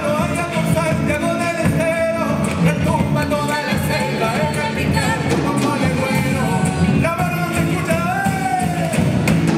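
Live rock band playing a song: singing over electric guitars and a steady rhythm backing.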